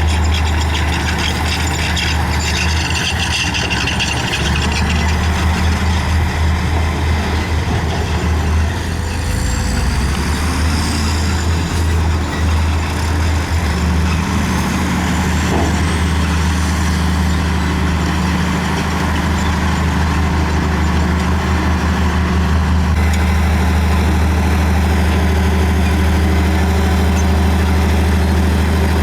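Heavy diesel engine of a crawler bulldozer running steadily, a deep even drone, with faint high squeals rising and falling about a third and halfway through.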